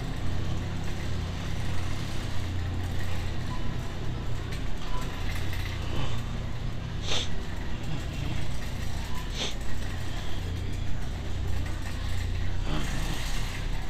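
Supermarket ambience picked up by the small built-in microphone of camera sunglasses while walking down the aisles: a steady low hum, with two sharp clicks about seven and nine and a half seconds in.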